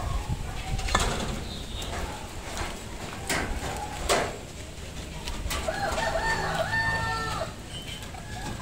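A rooster crows once, a drawn-out call of about two seconds past the middle. Earlier come a few sharp knocks and clicks from the wire cages and plastic basket being handled.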